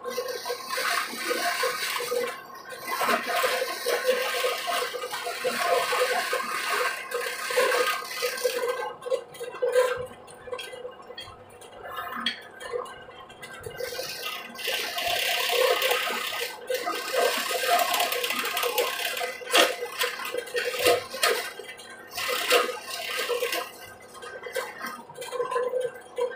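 Bench drill press running with a small bit side-cutting a hand-held block of red angsana wood to trim it. Repeated bursts of rasping cutting come over the motor's hum, with short lulls between passes.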